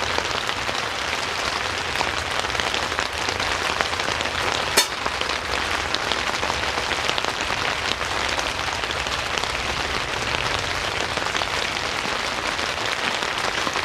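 Steady rain falling on a tent canopy, with one sharp click a little under five seconds in.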